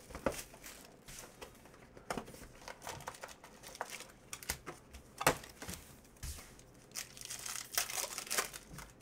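A Panini Elite Extra Edition baseball card pack's wrapper being torn open and crinkled, then the cards handled: irregular crackling with a sharp click about five seconds in.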